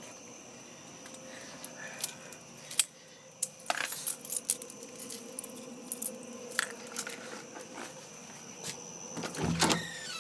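A dog worrying a cicada it has caught: scattered sharp clicks and jingles, a louder scuffle near the end, over a steady thin high drone.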